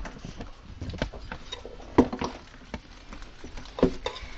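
Guinea pigs scuffling about in their cage: scattered light taps and pattering, with two louder knocks, one about two seconds in and one near the end.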